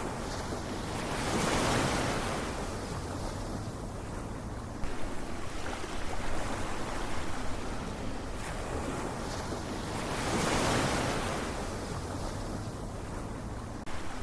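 Ocean waves breaking and washing up: two swells about nine seconds apart, the first about two seconds in and the second near eleven seconds, over a steady low rumble of surf, with a fizzing wash between them.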